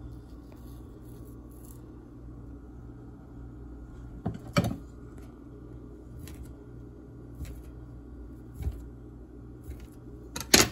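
A kitchen knife pressing through a sheet of mung bean dough and knocking against the board beneath: a few scattered knocks, the loudest about four and a half seconds in and again near the end, over a steady low hum.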